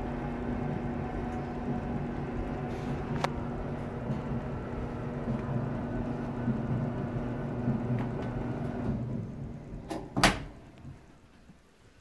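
Samsung DV42H5200 electric dryer running a test cycle, its motor and drum humming steadily. About nine seconds in the hum winds down, and about a second later the door latch clicks open loudly.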